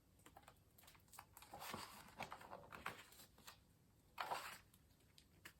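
Faint rustling and soft clicks of a picture book being handled as its pages are turned, with a short rustle about four seconds in.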